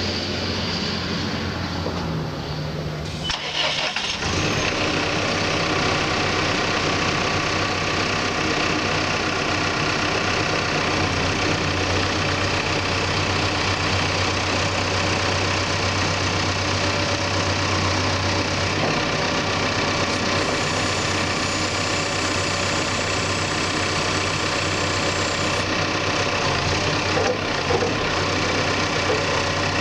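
Caterpillar 420F backhoe's diesel engine starting about three to four seconds in, then idling steadily.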